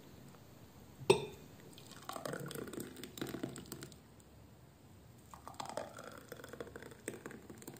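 Thick blended beetroot smoothie poured from a blender jug into drinking glasses, in two soft, gurgling spells. A single sharp knock comes about a second in, as a glass is set down on the table.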